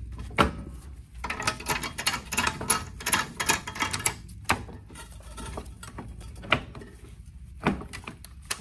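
Talaria Sting electric dirt bike's gearbox case being jostled free of the motor and frame: a spell of rapid clicking and rattling from about one to four seconds in, then several single sharp knocks.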